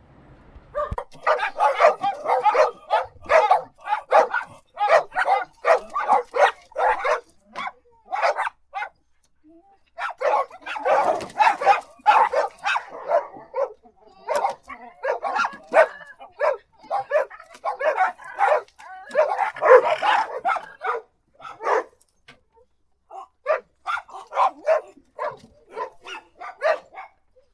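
Dogs barking in quick runs of short, sharp barks, several a second, broken by brief pauses.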